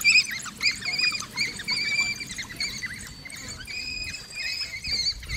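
A pack of African wild dogs twittering: many overlapping high-pitched chirps and squeaks, bird-like and constant.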